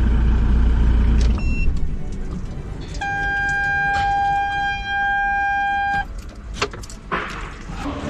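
A low rumble at the start, then a short high beep about a second and a half in. A steady single-pitched tone follows, starting about three seconds in, held for about three seconds and cutting off cleanly. A few clicks come near the end.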